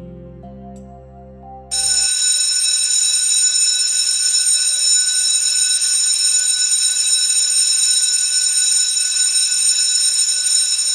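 The last moment of soft synth music, then, about two seconds in, a loud, steady, high-pitched electronic tone over hiss that holds unchanged without any beat or pulse.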